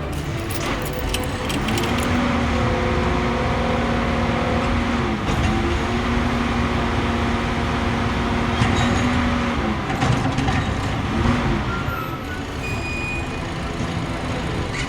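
A vehicle engine running under a steady rushing noise. Its pitched hum glides up about 1.5 s in, holds with a brief dip around 5 s, and glides back down near 10 s.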